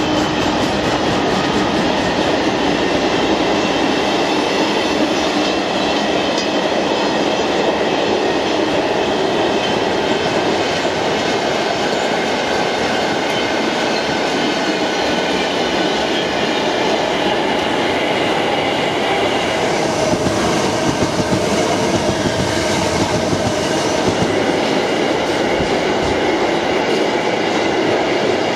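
Loaded car-carrier freight wagons rolling past at speed: a loud, steady noise of wagon wheels running on the rails that does not let up.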